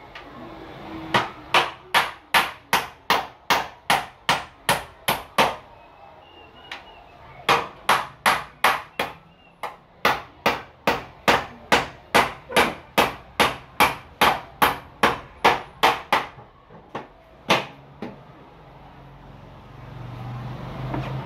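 Hammer driving concrete nails through the back of a plastic meter box into a wall: two long runs of quick, even blows, about three a second, with a short pause between them and two last single blows near the end.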